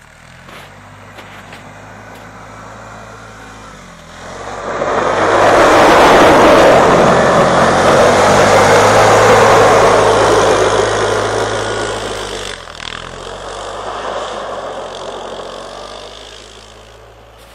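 Suzuki Eiger 400 ATV's single-cylinder engine running in the distance, then getting loud about four seconds in as the quad passes close under power with a rush of tyres and thrown snow. It fades as it moves away, swelling briefly once more before dying down near the end.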